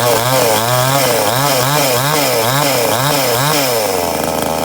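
Cheap Chinese-made two-stroke chainsaw running on its first start, its engine speed rising and falling about twice a second, then holding steady near the end.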